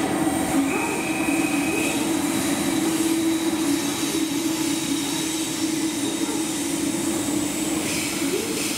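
A freight train rolls past on a far track while a 415-series electric train stands at the platform, giving a steady rail hum with a held tone that briefly slides up every second or so.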